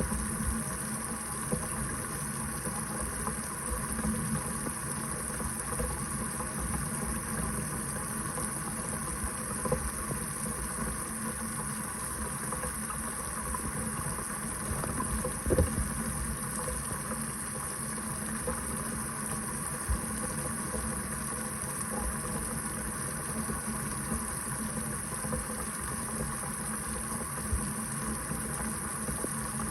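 Kitchen faucet running steadily into the sink, a continuous stream of water, with one brief knock about halfway through.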